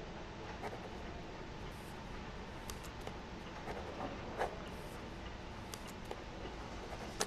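Faint scratching and light ticks of a pen writing on paper, over a steady low room hum.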